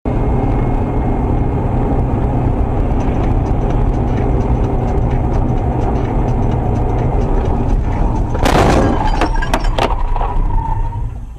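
Steady road and engine noise heard inside a moving car, then about eight seconds in a loud crash followed by a few sharp cracks: the car striking a bear on the highway.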